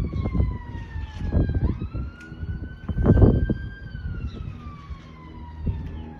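Emergency-vehicle siren on a slow wail, its pitch sliding down, sweeping back up about a second and a half in, then sliding down again. Loud, irregular low rumbles run underneath and are loudest about three seconds in.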